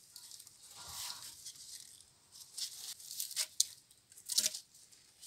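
Wooden poles in a stack scraping, rattling and knocking against one another as one is handled and pulled out, with a few sharp knocks in the second half.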